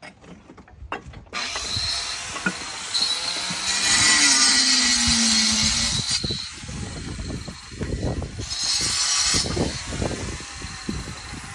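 Power saw cutting through stack stone, starting about a second in and growing louder twice, around four seconds in and again near eight seconds.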